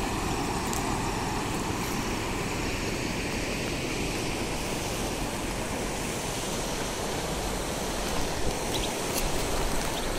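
Steady rushing of a shallow river flowing over pebbles and rocks, with wind buffeting the microphone as a low, uneven rumble.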